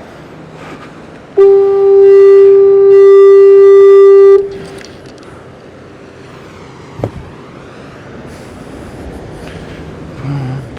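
Fog horn sounding one loud, steady blast of about three seconds, a single mid-pitched tone with overtones that cuts off abruptly. A single sharp knock follows a few seconds later.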